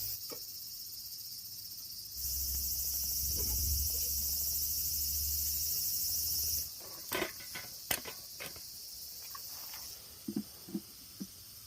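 Autumn insects, crickets, chirping in a steady high-pitched chorus that grows louder about two seconds in and drops back about seven seconds in. A handful of sharp clicks and knocks come in the second half.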